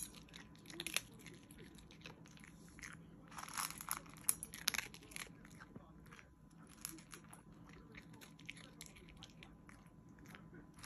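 Miniature pinscher chewing and crunching dry kibble from a stainless steel bowl, in irregular bursts of crunching with short pauses; the busiest bursts come about three to five seconds in.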